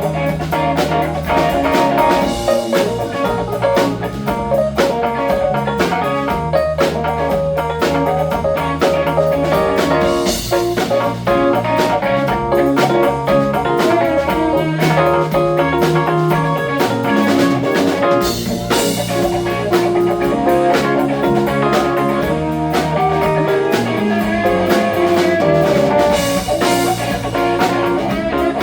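Live band playing a blues-rock instrumental passage: guitar leading over bass and a drum kit, with cymbal crashes now and then.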